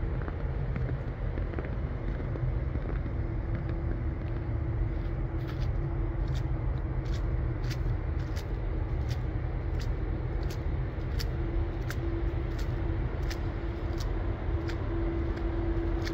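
Motor vehicle running at low speed: a steady low rumble with a hum that grows stronger in the second half. From about five seconds in, a light, sharp tick repeats roughly every 0.7 seconds.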